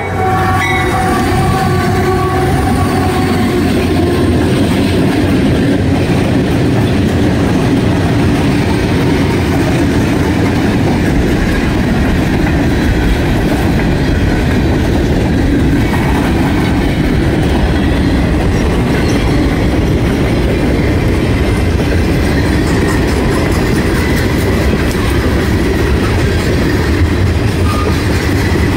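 Heavy CSX freight train passing close by: its multi-locomotive lead consist goes by with diesel engines running, then freight cars rolling past with wheels clacking over the rails. The sound is loud and steady throughout.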